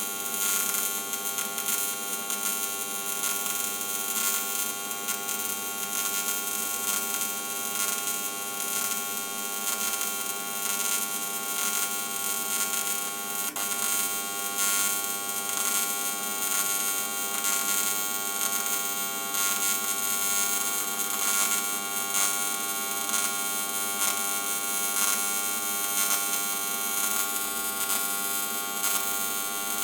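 TIG welding arc running a continuous bead around a tube flange joint: a steady buzzing hum with a hiss over it, unbroken throughout.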